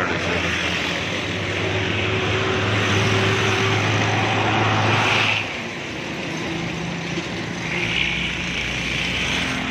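A tractor engine running steadily; it drops in level and its pitch changes about five and a half seconds in.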